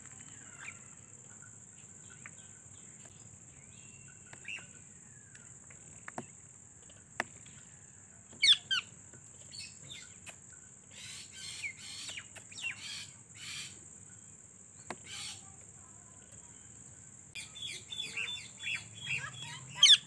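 Parakeets calling: scattered soft chirps and a few sharp clicks, a loud squawk that glides up and down about eight seconds in, and a burst of rapid chattering near the end.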